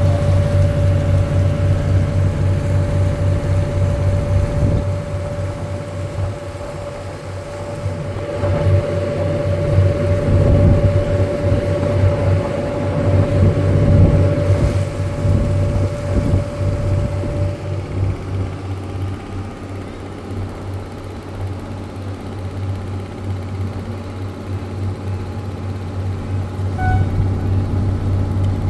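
River cruise boat's engine running with a steady low drone, heard on board, and a steady higher whine that stops about two-thirds of the way through.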